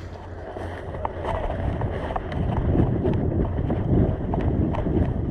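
Rustling and crunching of undergrowth and branches as someone pushes on foot through dense woodland, growing louder over the first few seconds, with scattered small snaps of twigs.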